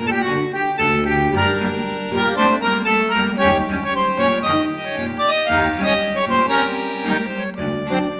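Instrumental tango music with a squeezebox carrying the melody in sustained, shifting chords over a steady bass line.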